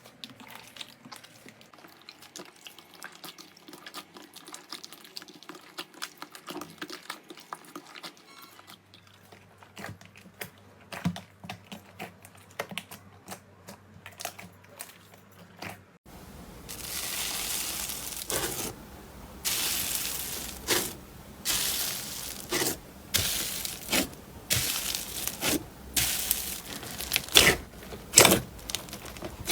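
Slime being handled: soft crackles and small squishes at first, then about halfway through louder, wetter squelches and pops as it is pressed and stretched, about one a second.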